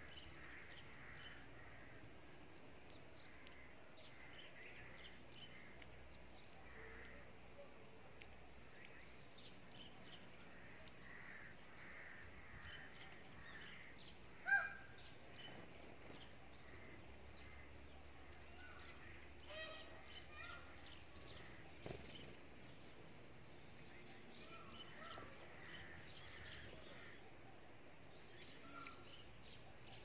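Small birds twittering: rapid runs of short, high chirps that go on throughout, faint. One louder short note stands out about halfway through.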